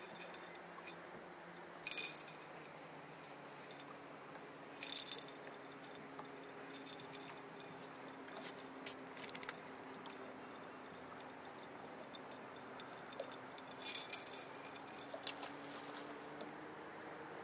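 Short metallic rattles and clinks from fishing tackle being handled in an aluminium boat, three louder ones about 2, 5 and 14 seconds in, with lighter clicks between. Under them runs a faint steady motor hum that slowly rises in pitch.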